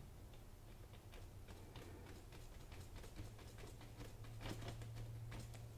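Faint, irregular tapping of a small filbert paintbrush dabbing acrylic paint onto a canvas, over a low steady hum.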